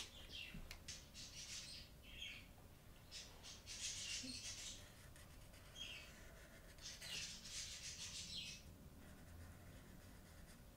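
Broad-tip felt marker drawing strokes on paper: a series of faint, scratchy squeaks, one per stroke, the longest about four and seven seconds in.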